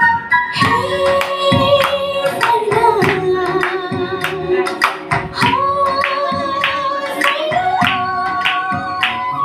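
Nepali Christian song played for a dance: a voice sings long held notes over a steady drumbeat of about two strikes a second.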